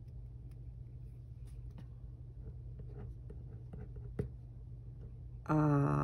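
Pen writing on paper: faint scratching with small ticks over a steady low hum, and a sharp click about four seconds in. Near the end a voice takes over, humming a held note that is the loudest sound here.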